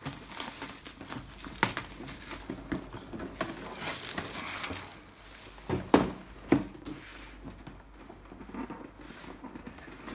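Plastic shrink wrap crinkling and rustling as it is peeled off a cardboard box, then two dull knocks about six seconds in as the box is turned over on the table.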